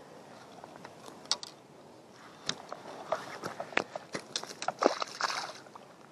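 Crunching footsteps on a gravel bank and a run of sharp clicks and knocks, starting about two seconds in, as a small largemouth bass is handled and drops onto the stones at the water's edge.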